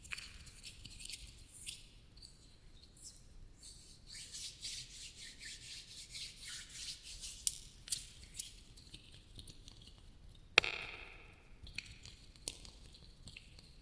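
Close-miked ASMR trigger sounds: soft crackly rubbing and scratching with light ticks, processed with an echo effect. About ten and a half seconds in comes one sharp tap that rings on with echo.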